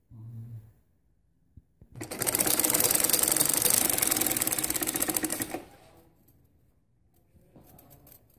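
Domestic sewing machine stitching a seam at a fast, even rate for about three and a half seconds, starting about two seconds in and then stopping.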